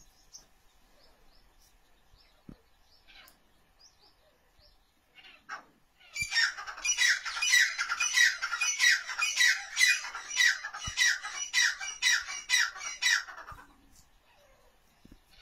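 Francolin (teetar) calling: after a few faint high chirps, a loud run of quick falling notes begins about six seconds in. The notes repeat about three times a second for some seven seconds, then stop.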